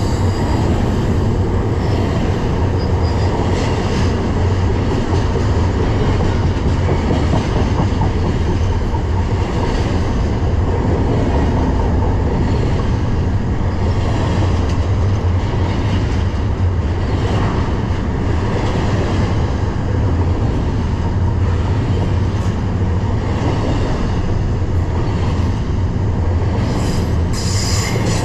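BNSF intermodal freight train rolling past, its wheels running over the rails in a steady heavy rumble and clatter. A brief high wheel squeal comes near the end.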